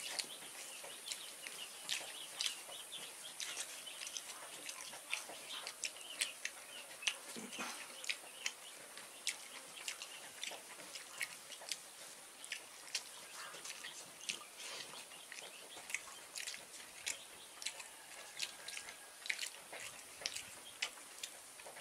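Two people eating by hand: many small, irregular wet clicks of chewing and lips over a faint steady hiss.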